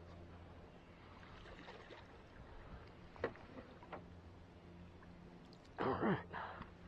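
A hooked bass splashing at the side of the boat as it is swung up out of the water, about six seconds in. Before that there is a steady low hum and two sharp clicks.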